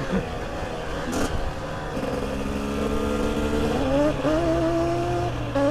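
KTM 300 EXC two-stroke enduro engine running on its break-in ride, its note holding steady and then climbing in pitch about four seconds in.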